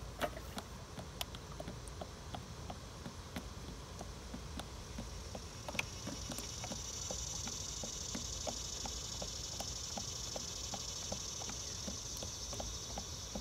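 Summer insects outdoors: a steady high-pitched buzz that swells in about five seconds in, over a regular ticking about three times a second.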